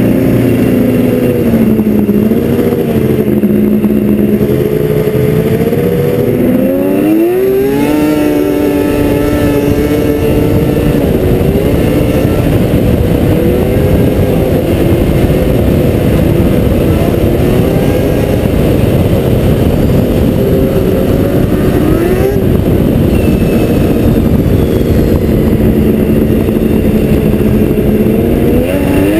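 Yamaha SRX 700 snowmobile's three-cylinder two-stroke engine with a loud racing can exhaust, running under way. The engine pitch climbs sharply about seven seconds in as the throttle opens, then holds higher with the revs easing and picking up again, rising once more near the end.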